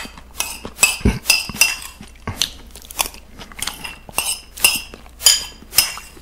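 A metal spoon clinking and scraping against a ceramic soup bowl, a quick run of sharp taps that each ring briefly, as soup is scooped up. A dull knock comes about a second in.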